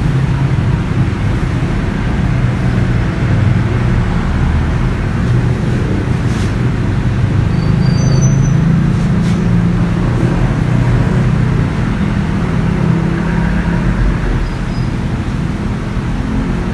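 Steady low rumble of a motor vehicle's engine running, with road noise.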